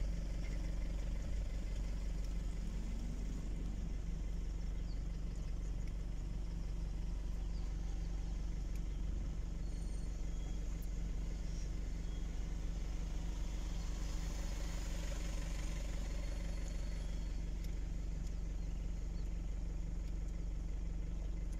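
Car engine idling steadily, heard from inside the vehicle's cabin.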